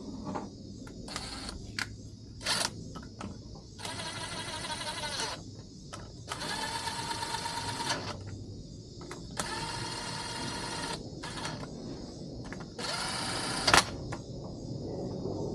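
A small motor running in four bursts of one to two seconds each, with clicks and clatter in between.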